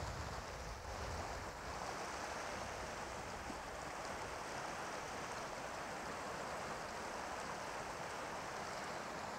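Mountain stream rushing over stones: a steady rush of water.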